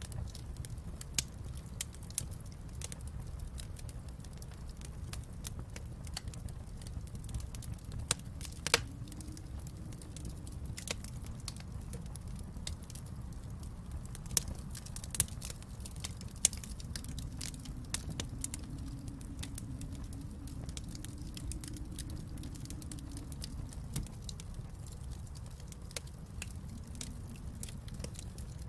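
Wood fire in a fireplace crackling, with frequent irregular snaps and pops over a steady low rumble; one sharp pop stands out about a third of the way in.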